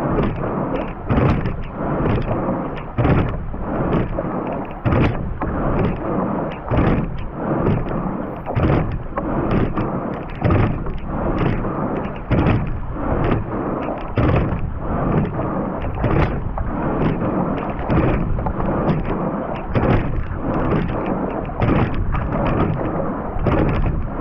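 Racing quad scull under way at about 32 strokes a minute: the sculls knock in the oarlocks with each stroke, about every two seconds, over a steady rush of water and wind.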